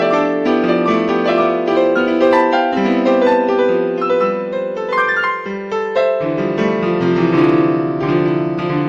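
Background piano music: a flowing run of many quick notes with sustained chords, no voice.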